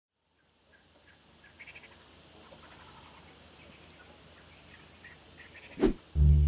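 Crickets chirping: a steady high trill with short chirps over it, fading in from silence. Near the end a single loud thump, then music with a heavy bass comes in.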